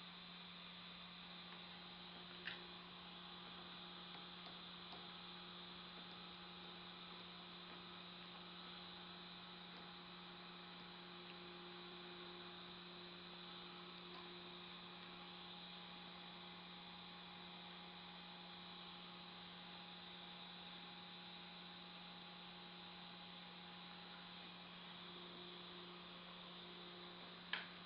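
Near silence with a steady low electrical hum, broken by two short clicks, one a couple of seconds in and one near the end.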